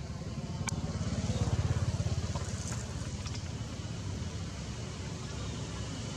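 Low, steady engine rumble of a motor vehicle, swelling louder about a second or two in and then settling, with a faint hiss and a few small clicks.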